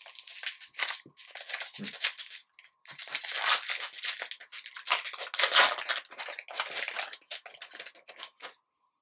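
Foil wrapper of a trading card pack crinkling and tearing as it is pulled open by hand, the crackling busiest and loudest in the middle.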